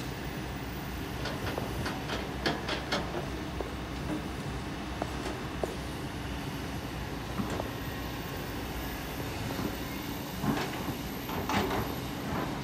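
Kobelco SK200 excavator's diesel engine running steadily, with stones clattering sharply in a burst of clacks about two seconds in and again near the end as rock and sand are dumped onto the steel sieve screen and the bucket works.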